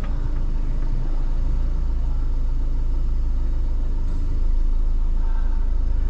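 A motorhome's engine idling steadily, heard from inside the cab, its sound sitting low and even.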